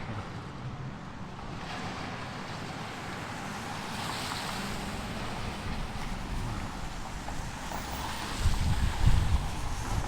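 Wind on the microphone over the steady noise of demolition machinery working the building. Harder gusts buffet the microphone near the end.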